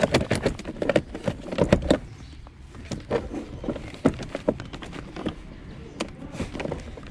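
Handling noise: irregular clicks, knocks and rustling as an OBD-II scanner's cable connector is fitted into the car's diagnostic port under the dashboard. The sounds come thickest in the first two seconds and are sparser after.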